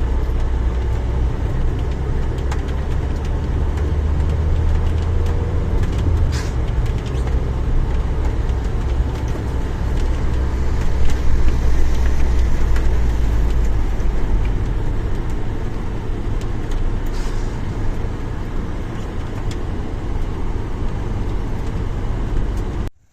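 Heavy rainstorm with wind, a loud steady rush of rain and a deep wind rumble on the microphone that eases off after about fourteen seconds. A few sharp ticks stand out, around six and seventeen seconds in.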